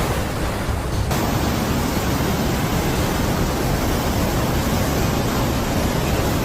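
Heavy rain and strong wind in a sudden storm squall: a loud, steady rushing noise that becomes fuller and hissier about a second in.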